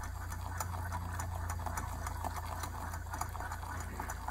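Wire whisk beating gravy in a small nonstick saucepan, clicking against the pan in quick, even strokes, several a second, over a steady low hum.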